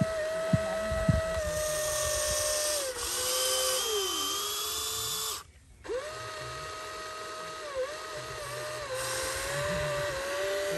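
Huina RC excavator's small electric motors whining as the boom and bucket move, the pitch stepping up and down with each movement. The whine stops briefly about halfway, then starts again; a couple of sharp clicks near the start.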